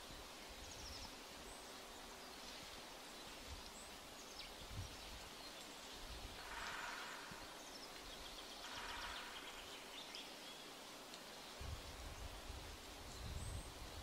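Faint woodland ambience: a soft steady hiss with scattered short, high bird chirps. There are two brief rustling swells in the middle and a few soft low thumps near the end.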